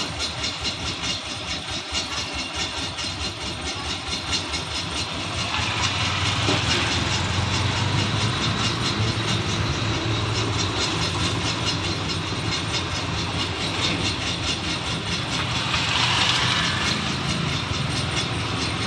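Light street traffic: motorcycles, auto-rickshaws and cars running past, with a fast, even ticking underneath. Engine hum builds about five seconds in, and vehicles pass closest twice, about six and sixteen seconds in.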